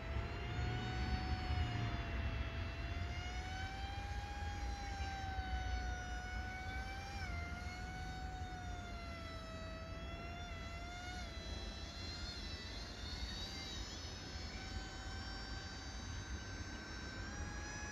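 RC paramotor's motor and propeller whining steadily in flight, its pitch wandering up and down with small sudden drops about seven and eleven seconds in.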